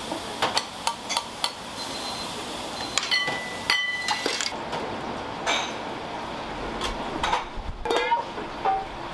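Dishes and metal kitchenware clinking and knocking: a string of sharp knocks, with one piece ringing briefly about three seconds in, over a steady hiss of kitchen noise.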